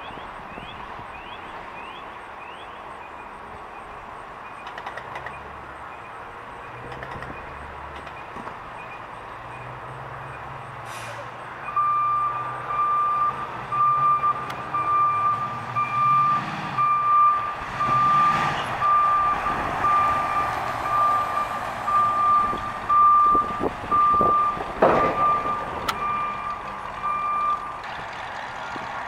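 1968 Chevrolet C10's 454 V8 running as the truck drives at low speed. A reversing alarm from another vehicle joins in about twelve seconds in, beeping steadily at an even pace for about sixteen seconds. It is the loudest sound and stops shortly before the end.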